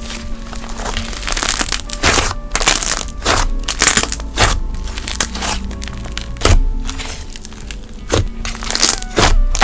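Thick, creamy slime with a grainy snow texture being pressed and squeezed by hand, giving repeated irregular crackling pops, over soft background music.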